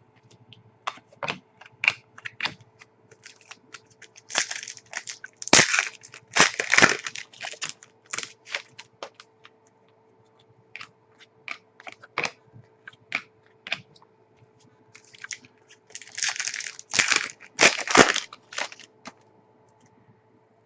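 Trading card packs and cards being handled: wrappers crinkling and tearing, cards rustling and sliding against each other, with many sharp clicks and two longer bouts of rustling, about four seconds in and again later on. A faint steady hum lies underneath.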